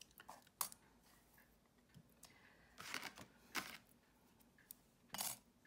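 Faint, scattered taps and rustles of thin metal cutting dies and card being picked up and set down on a craft mat, about five short clicks in all.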